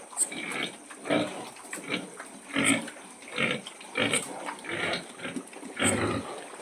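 Pigs grunting over and over, short rough grunts following one another about once or twice a second.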